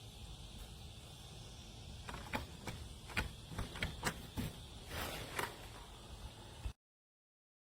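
A rapid run of about ten sharp clicks and knocks from handling a SMONET keypad smart lock on a door. The sound cuts off abruptly near the end.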